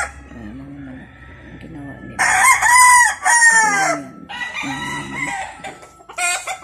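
Roosters crowing: one loud, drawn-out crow starts a little over two seconds in and lasts nearly two seconds, then a fainter crow answers, and a short call comes near the end, with low clucking beneath.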